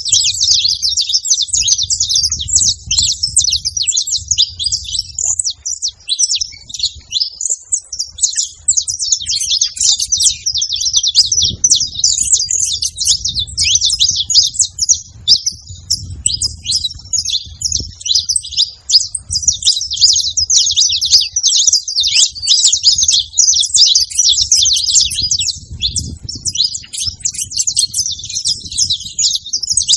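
Saffron finches singing and chirping together in a dense, unbroken chatter of quick high notes, with a low rumble coming and going underneath.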